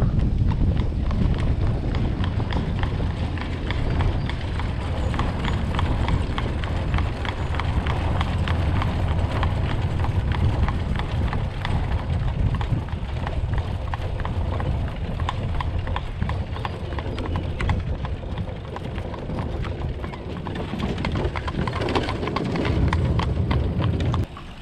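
A horse's hooves clip-clopping at a trot on wet asphalt as it pulls a buggy just ahead, a steady run of sharp hoof strikes. Wind rumbles on the microphone underneath.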